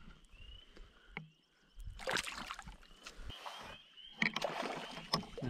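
Water splashing and sloshing beside a canoe, in a burst about two seconds in and again from about four seconds in, as a hooked fish thrashes at the surface on a fly line.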